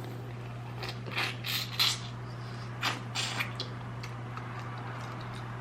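Short crackling, crunching sounds of shrimp being eaten and handled, in two clusters about one second and about three seconds in, over a steady low electrical hum.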